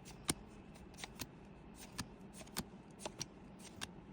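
Pokémon trading cards being flipped and slid over one another by hand, making a scatter of faint, short clicks and flicks, the loudest about a third of a second in.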